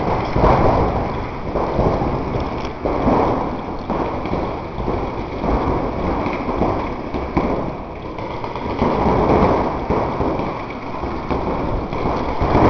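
Paintball markers firing in quick strings of pops, with paintballs pattering and smacking against bunkers, over a steady low rumble.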